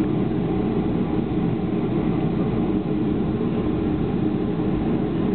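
Cabin noise of a Boeing 737-400 taxiing: a steady low rumble.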